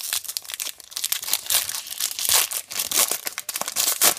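Crinkling and tearing of a trading-card pack wrapper as the pack is opened and the cards are pulled out. It comes as irregular sharp crackles, loudest about two and a half seconds in and again just before the end.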